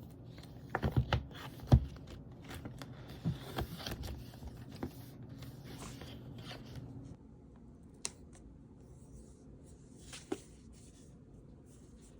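Cardboard product box being opened by hand: tape torn or cut, a few sharp knocks as the box is handled, and rustling and scraping of the packaging, going quieter with only light clicks in the second half.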